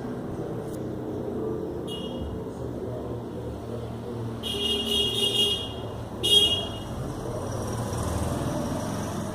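Steady low background rumble like road traffic, with three short high-pitched tones about two, four and a half, and six seconds in, the last one the loudest.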